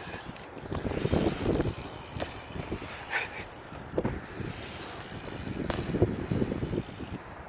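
Wheels rolling and rattling over the ground on a ride down the course. The rumble swells twice, with scattered clicks and a brief squeak about three seconds in.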